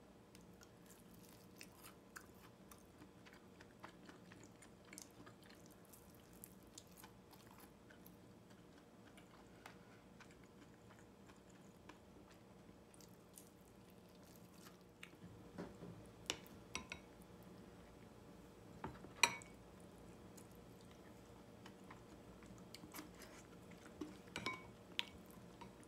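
Close-up eating sounds: quiet chewing of food, with light clicks of wooden chopsticks against ceramic bowls, over a faint steady hum. The clicks grow sharper and more frequent in the second half.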